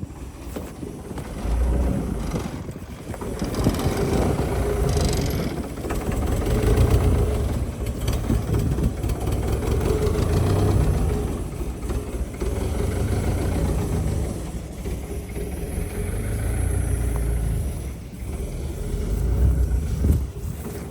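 Diesel engine of a 1992 Caterpillar E120B excavator running, its sound rising and falling several times.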